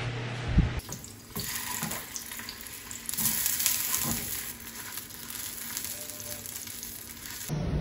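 Hot dogs sizzling in oil in a nonstick frying pan, an even hiss with scattered small clicks. At the start an electric fan hums steadily, ending with a short loud thump just before the sizzling begins.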